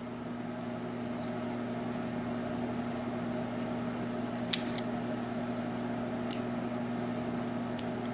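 A few light metallic clicks from small lock parts being handled as the pin stack of a Yale rim cylinder is taken apart, over a steady low hum.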